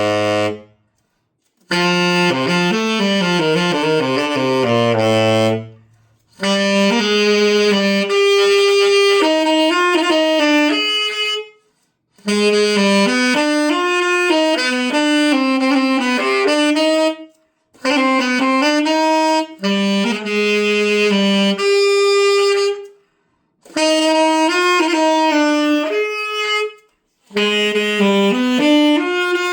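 Yamaha YTS-62 tenor saxophone played solo to test it after repair: phrases of running notes and held tones, down into the low register, separated by short silent breaks.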